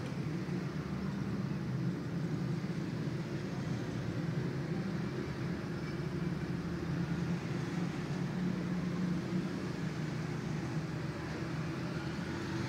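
A steady low rumbling hum with no breaks or separate events.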